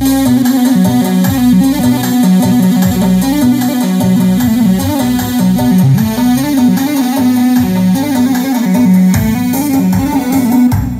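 Korg arranger keyboard played by hand: a melody in an Arabic folk (sha'bi) sound over low held notes, playing continuously.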